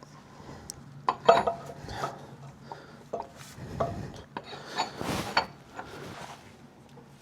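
Metal clinks, knocks and scraping as a replacement axle shaft and hub parts are worked into place by hand; the loudest clanks come about a second in, and a longer scrape about five seconds in.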